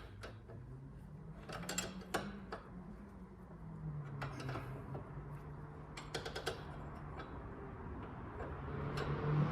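Hand tool clicking and clinking on metal in short bursts, four or five times, while a steering tie-rod fitting is being undone, over a low steady hum.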